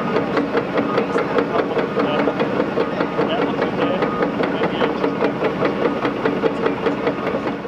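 Liebherr R930 demolition excavator's engine running steadily, with a dense, irregular clatter of knocks and crunches from the shear and falling debris.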